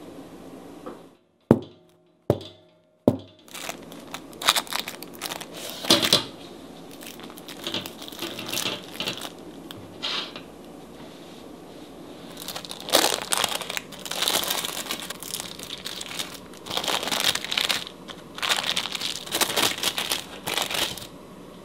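Three sharp knocks of the metal loaf pan in the first few seconds, then parchment paper crinkling and rustling in irregular bursts as it is handled and peeled off a baked pound cake.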